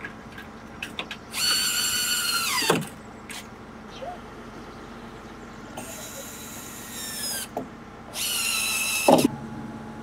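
Cordless drill driving screws into a timber wall frame: three high-pitched whining runs, each winding down in pitch as the motor stops, with small knocks and clicks in between.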